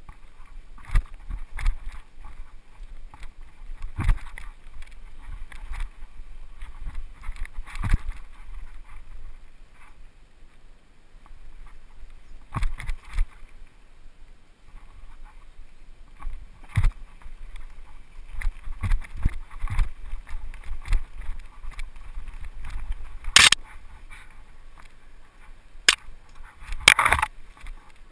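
Mountain bike descending a dirt forest trail, recorded from the rider's helmet: tyre and ride noise with the bike rattling and knocking irregularly over roots and bumps. The sharpest, loudest knocks come late, about 23 seconds in and again a few seconds later.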